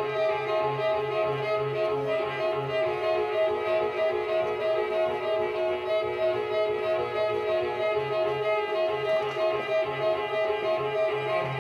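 Music for bowed strings, violin and cello, built on a short note repeated in a steady quick pulse over a pulsing low line.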